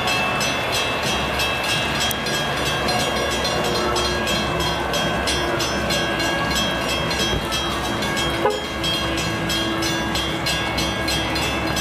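Metra commuter train running: a steady rumble with a constant drone and a faint regular ticking, and one sharp click about eight and a half seconds in.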